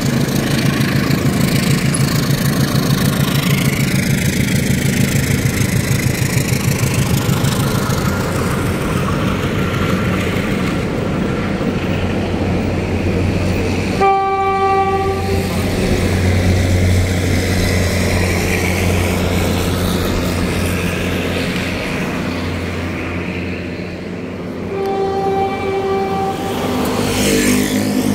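Philippine National Railways diesel commuter train running past with a steady rhythmic clatter, then a low engine hum. It sounds its horn twice: a short blast about halfway through and a longer one near the end.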